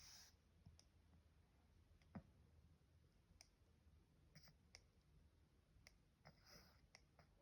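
Pug puppy hiccuping: faint, irregular small clicks, the clearest about two seconds in, with brief breathy puffs between them.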